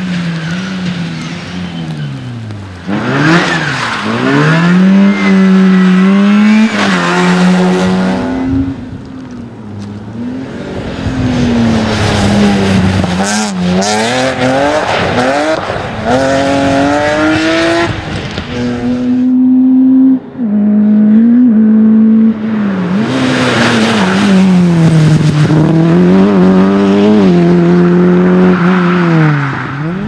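Rally cars passing one after another at full throttle, engines revving up and dropping back through gear changes, with a few sharp cracks about halfway through.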